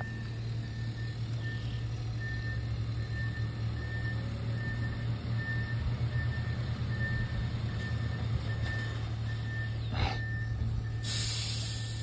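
Diesel engine of a heavy machine running with its backup alarm beeping steadily as it reverses on site, and a short hiss near the end.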